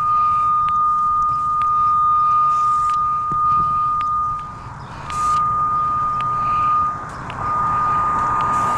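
Cable locator receiver's steady high-pitched audio tone, picking up the transmitter signal clamped onto a CATV coax cable. It is a strong response, a sign of good current on the cable. The tone drops out briefly twice, about halfway through and again a couple of seconds later.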